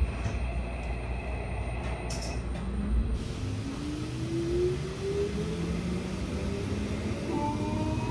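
Keikyu 1000 series train with Toshiba permanent-magnet synchronous traction motors, heard from inside the car: a steady low running rumble, then from about three seconds in the inverter and motor whine rises in pitch in several climbing tones as the train accelerates.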